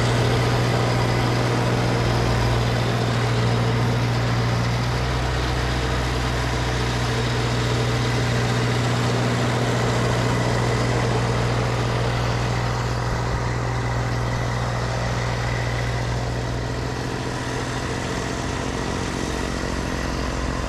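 Snowblower engine running steadily under load, with the hiss of snow being churned and thrown.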